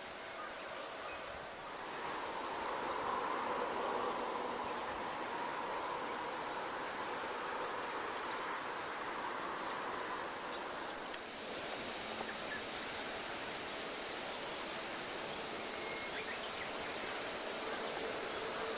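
Steady chorus of summer insects chirring in roadside greenery. A louder, higher-pitched buzz joins a little over halfway through.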